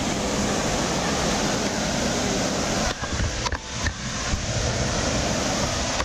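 Steady rush of falling water from a waterfall, with an uneven low rumble of wind or handling on the microphone.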